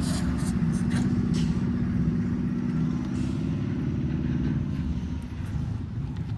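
JCB 3DX backhoe loader's diesel engine running under load while digging and loading, easing off about two-thirds of the way through, with a few faint clanks.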